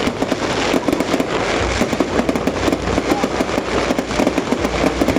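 Fireworks display: aerial shells bursting in a dense, rapid stream of crackling pops, with deeper booms joining from about a second and a half in.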